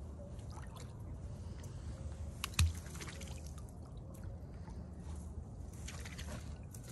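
Faint trickling and lapping of river water under a low steady rumble, with one sharp knock about two and a half seconds in.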